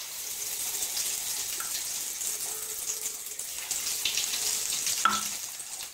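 Bread-crumb-coated potato balls deep-frying in hot oil in a kadai: a steady sizzle with fine crackling.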